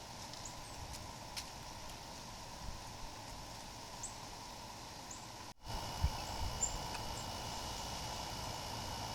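Birds giving short, scattered high chirps over steady outdoor background noise. A little over halfway the sound drops out for an instant, then comes back with a steady high whine added and a few low thumps.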